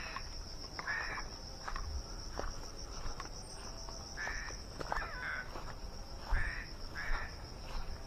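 Steady, high-pitched insect drone with a slight flutter, joined by short chirps about once a second and a few faint clicks.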